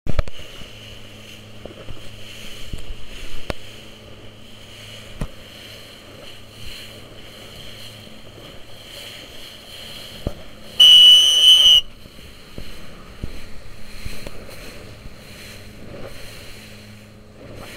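Wind and water noise from a small boat on choppy sea, with a low steady hum and scattered short knocks of waves against the hull. About eleven seconds in, a loud shrill tone sounds for about a second.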